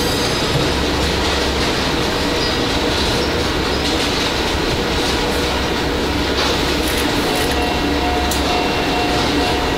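Car assembly line factory noise: a steady mechanical din of conveyor and machinery with a faint hum, broken by a few sharp clicks and clanks of tools in the second half.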